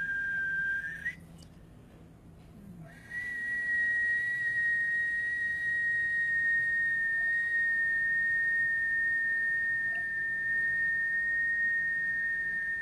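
A person whistling one long, steady high note. It breaks off about a second in with a small upward flick, resumes after a pause of about two seconds, and holds until near the end, where it again ends with an upward flick.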